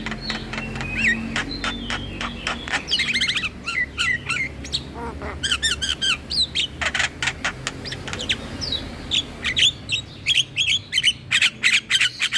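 Javan myna (jalak kebo) singing a fast, chattering song of varied sharp whistles, clicks and harsh squawks, the notes coming thick and quick, over a steady low hum.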